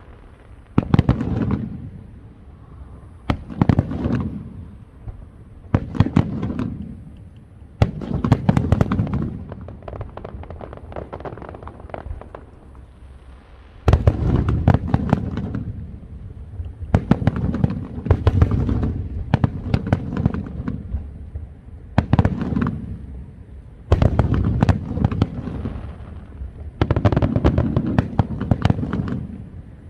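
Fireworks display: aerial fireworks going off in repeated volleys, each a cluster of sharp bangs with crackling and a low rumble, every two to three seconds. A loud burst about halfway through starts a denser stretch of volleys.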